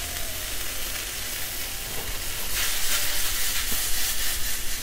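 Mushrooms and brandy sizzling and bubbling as they boil down in a stainless-steel skillet over a gas flame. The sizzle grows louder about halfway through.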